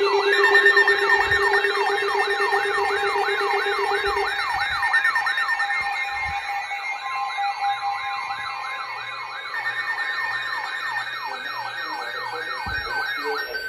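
Electronic siren in a fast yelp, its pitch rising and falling a little under three times a second, with steady tones under it. One low tone stops about four seconds in, and the siren cuts off near the end.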